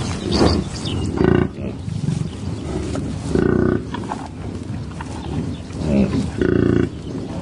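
Three short pitched animal calls, about two and a half seconds apart, over a steady low rumble.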